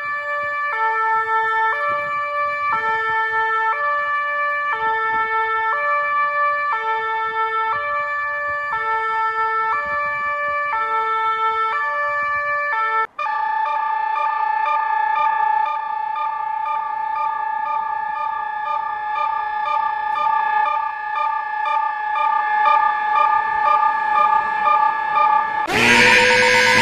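Synthesized emergency-alert alarm tone switching back and forth between two pitches about once a second. About halfway through it cuts out for an instant, then becomes one steady held chord of tones. Near the end a louder, harsher alarm tone with rising pitches cuts in.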